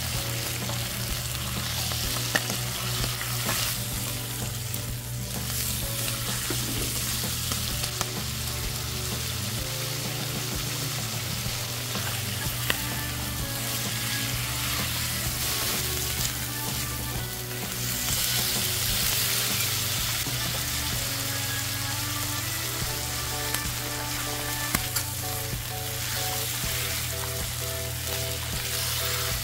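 Chicken livers with garlic and onion sizzling in hot oil in a nonstick pan, stirred and turned with a spatula. The sizzle swells for a few seconds past the middle, with soft background music underneath.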